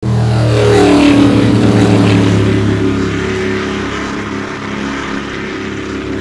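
Motorboat engine running loudly, its pitch dropping over the first second and a half, then holding steady as it slowly grows quieter.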